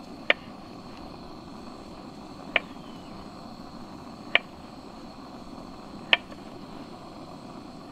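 Small knife slicing a kiwi fruit on a wooden cutting board. The blade knocks sharply on the board four times, about two seconds apart, over a steady low hiss.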